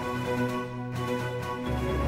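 Instrumental background music with held melody notes over a bass line that steps to a lower note near the end; no singing.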